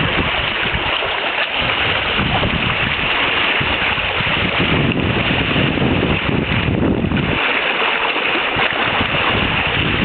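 Wind buffeting the microphone and water rushing along the hulls of a Hobie Cat catamaran under sail, a loud, steady rush with gusts.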